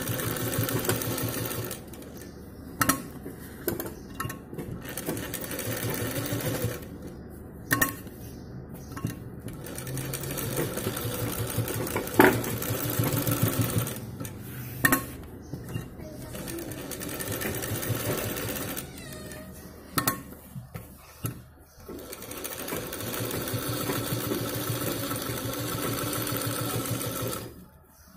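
Sewing machine stitching in runs of a few seconds, stopping briefly several times, with sharp single clicks around the pauses.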